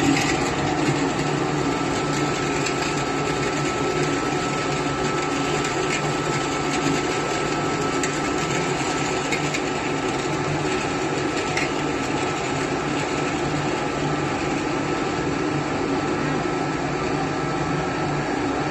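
Charcoal briquette extruder machine running steadily while it pushes out a hexagonal charcoal briquette log: a constant machine hum with a faint, steady high whine over it.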